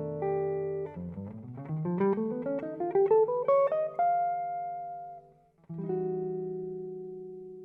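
Instrumental guitar music: a held chord, then a quick rising run of single notes up to a sustained high note. After a short break about five and a half seconds in, a final chord rings out and slowly fades.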